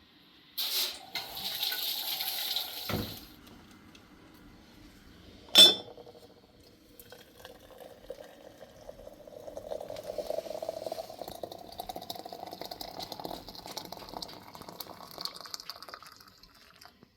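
Water running, with a hissing burst at first, a knock about three seconds in and a sharp loud click a little later, then a quieter steady flow for most of the rest.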